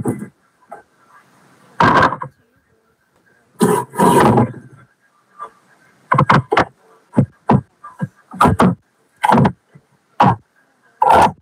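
Garden hose water spray coming in loud, irregular bursts of rushing noise as it hits plants and ground: two longer bursts, then about a dozen short ones in quick succession, with near silence between.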